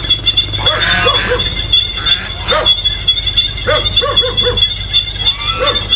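Short animal calls, often in quick twos and threes, over a steady high-pitched insect buzz.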